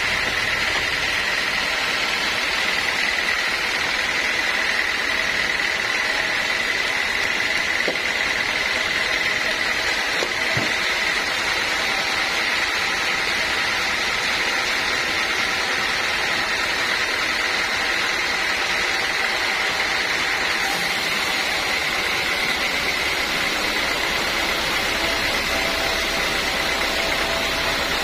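Sawmill machinery running steadily: a continuous high whine over an even mechanical noise.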